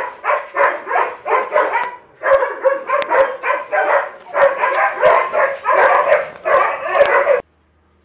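Small dog barking over and over, about three short barks a second, stopping suddenly near the end.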